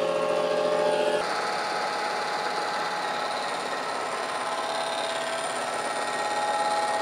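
Kearney & Trecker horizontal mill's indexable cutter, only every other pocket fitted with an insert, cutting across a weld-built-up hardened steel rack and throwing sparks. A steady machining noise with a ringing tone, whose pitch shifts about a second in.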